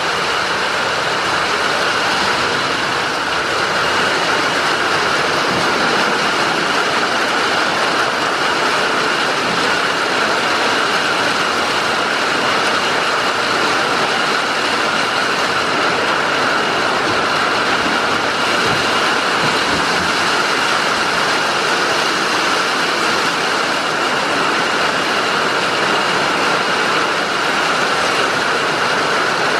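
Heavy rain falling steadily, heard from inside a wooden goat house: a dense, even hiss with no letup.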